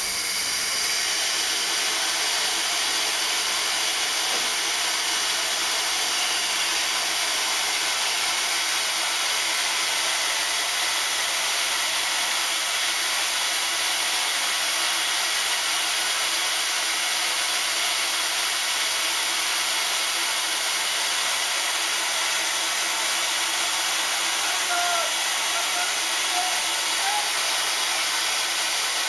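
JNR Class 8620 steam locomotive No. 58654 hissing steadily as steam escapes.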